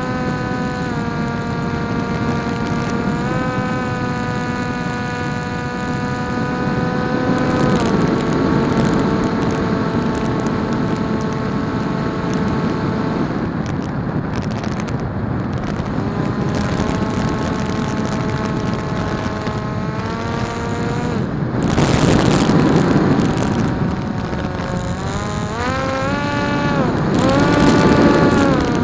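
Electric motor and propeller of a PopWing RC flying wing whining in flight, its pitch stepping up and down as the throttle is changed. The motor cuts out twice for a glide, with loud wind rush on the airframe about 22 seconds in and again near the end.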